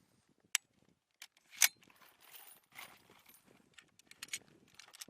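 Scattered sharp metallic clicks and clinks of handled equipment, the loudest about a second and a half in, with a few lighter ones near the end.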